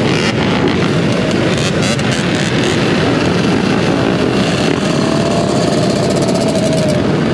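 Many dirt bike and ATV engines running together, with the rider's own dirt bike engine close by; a dense, continuous engine noise.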